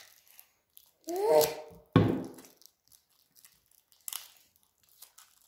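Children handling juice cartons, straws and wrappers on a table: light rustles and clicks, a short rising pitched sound about a second in, then a single loud knock with a low thud about two seconds in.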